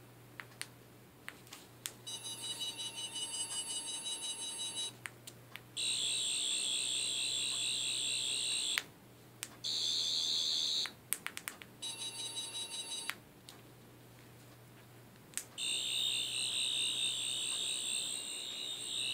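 Toy sonic screwdriver sound effect from a homemade sonic screwdriver: a high-pitched electronic warbling buzz set off several times by button clicks, in bursts of about one to four seconds. Some bursts are a thinner, steadier tone and others a louder warble.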